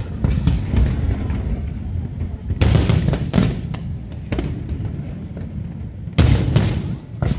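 Aerial firework shells bursting in quick groups of sharp bangs, about two and a half seconds in and again near the end, over a continuous low rumble.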